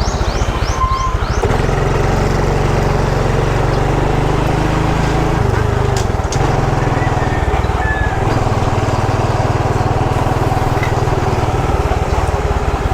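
Small motorcycle engine running under way, a steady low hum whose note changes several times. A steady rush of noise runs underneath it.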